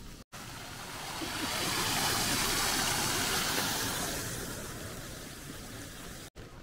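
Shallow stream running over a bed of rounded stones, a steady rush of water that swells in the first couple of seconds and then eases off.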